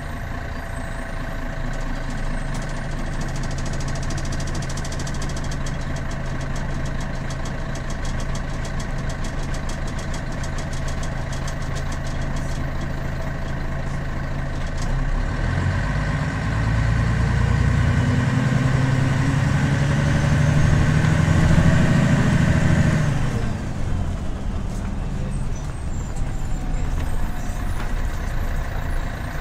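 Heard from inside the cabin of a 1997 Scania CN113CLL bus: its Scania DSC 11.71 diesel engine idles steadily. About halfway through it pulls away, the engine note rising and growing louder, then it drops abruptly a few seconds before the end and runs on more quietly.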